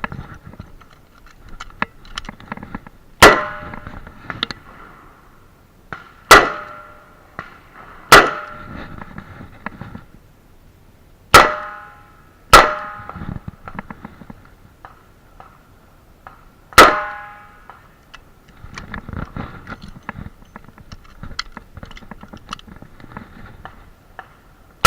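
Smith & Wesson Model 66 revolver firing six shots, spaced unevenly about one to four seconds apart, each followed by a short metallic ring. Fainter pops and clicks fall between the shots.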